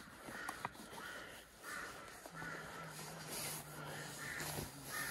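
Crows cawing repeatedly, with short calls coming about once a second. A low steady hum joins a little over two seconds in.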